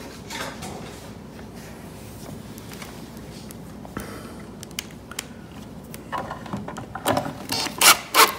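A few small clicks as a screw and washer are handled, then, from about six seconds in, a power drill driving a screw into the wooden stool in short bursts that get louder toward the end.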